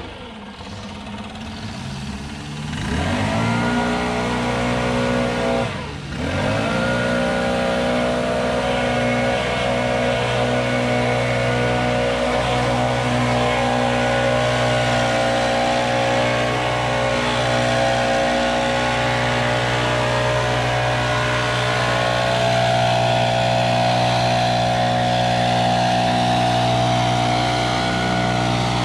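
Gas backpack leaf blower engine: it drops to a low idle at the start, revs back up about three seconds in, eases off briefly near six seconds, then runs steadily at high throttle while blowing off the sidewalk.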